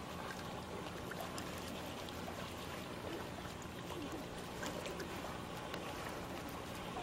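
Distant motorboat towing a water-skier, its engine a faint steady drone over small waves lapping near the shore.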